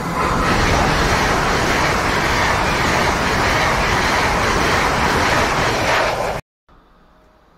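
Hitachi Intercity Express train passing through the station without stopping: a loud, steady rush of wheels on rail and moving air. It cuts off suddenly just over six seconds in, leaving a faint background hum.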